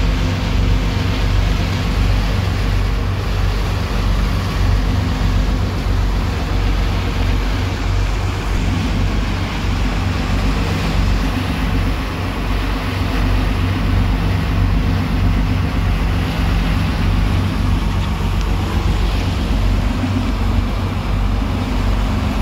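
Sport-fishing boat's engine running steadily underway, a constant low drone, with the rush of churning water from the wake.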